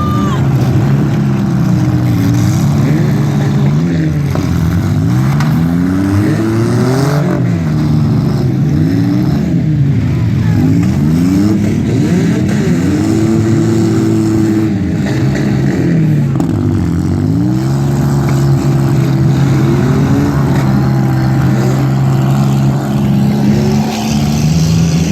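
Several demolition derby cars' engines revving together, their pitches rising and falling and crossing over one another, loud and without a break.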